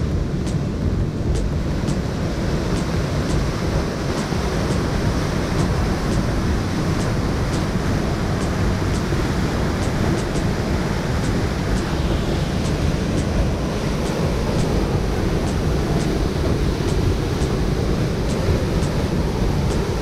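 Steady rushing roar of a waterfall, with a faint high ticking about twice a second.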